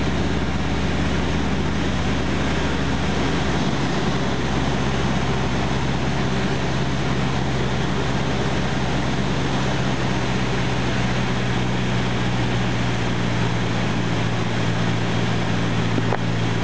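Cessna 152's four-cylinder Lycoming engine and propeller heard from inside the cockpit in flight: a steady drone over rushing airflow. The lowest note of the drone shifts slightly about three and a half seconds in.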